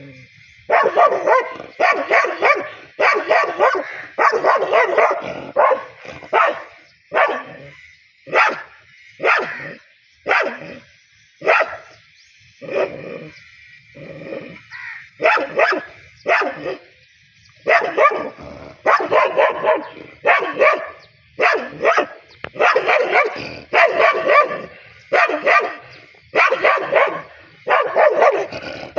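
Dog barking aggressively in quick runs of loud barks, with a sparser stretch of single, spaced-out barks in the middle.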